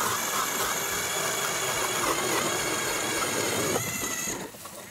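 40-volt lithium battery-powered electric ice auger drilling through lake ice: a steady electric motor whine over the grind of the blades cutting ice, falling away about four seconds in.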